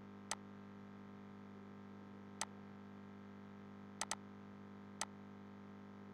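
Computer mouse clicks: a single click shortly after the start, another a couple of seconds later, a quick double click about four seconds in and one more click a second after that, over a steady low electrical hum.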